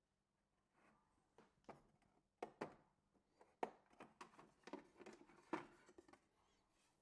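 A run of faint, light clicks and knocks from hands handling objects, about a dozen, scattered irregularly over several seconds.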